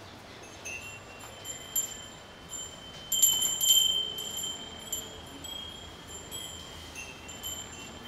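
Small metal bells jingling and ringing in a run of light strikes, each tone ringing on after it is struck. The loudest cluster of strikes comes about three seconds in.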